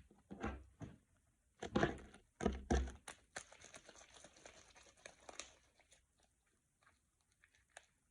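Homemade glue slime being squeezed and stretched by hand: a few loud squelches in the first three seconds, then a dense crackle of small pops that thins out.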